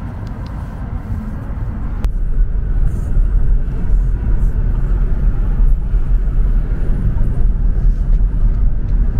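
Steady rumbling road noise of a moving car, heavy in the low end, stepping up in loudness about two seconds in.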